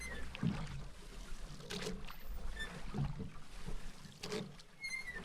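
Oars dipping and splashing in water at an even pace, about one stroke every second and a bit: a rowboat being rowed.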